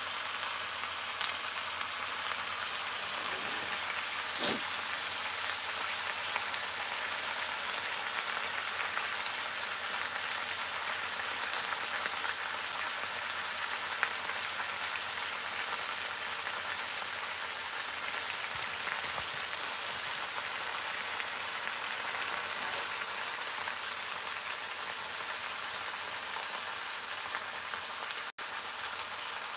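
Bacon-wrapped pork tenderloin sizzling steadily in a skillet on the stovetop, its fat frying in the pan.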